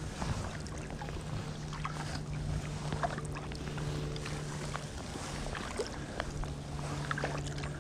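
Kayak paddle strokes on calm canal water: the blades dip and splash, and water drips and trickles off the shaft. Under them runs a steady low hum that briefly drops out about five seconds in.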